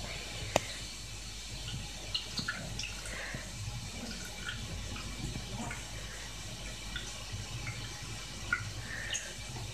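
Water trickling into a bathtub, with many small drips and plinks scattered throughout. A sharp click about half a second in.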